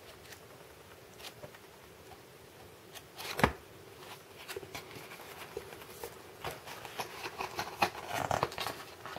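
Pages of a paperback storyboard book being leafed through and handled: faint paper rustles and small taps, with one louder knock about three and a half seconds in. Near the end the rustling and tapping thicken as the book is laid back into its box.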